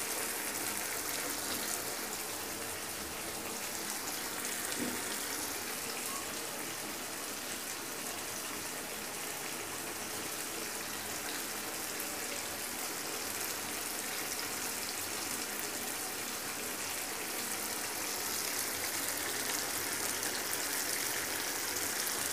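Chicken white karahi in a cream sauce, sizzling and bubbling steadily in a nonstick wok on the heat.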